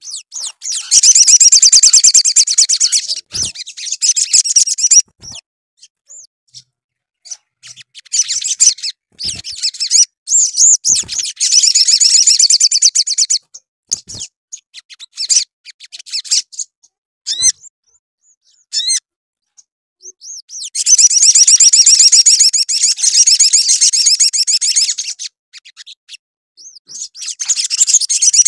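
Male olive-backed sunbird singing hard: long, rapid, high trilling songs of a few seconds each, three main bouts with short chirps between, another starting near the end.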